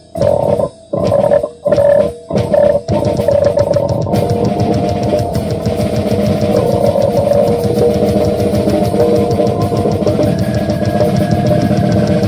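Live heavy rock on distorted electric guitar and drum kit. It opens with a few stop-start chord stabs separated by short silences. From about three seconds in the playing runs on without a break, with the drums' fast cymbal pattern coming in soon after.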